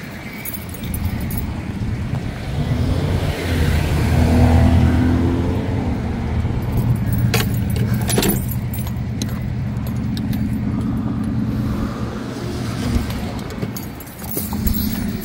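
A motor vehicle's engine running with a steady low hum that swells about four seconds in. Near the middle come two sharp clicks about a second apart, with keys jangling, as a pickup truck's door is unlocked and opened.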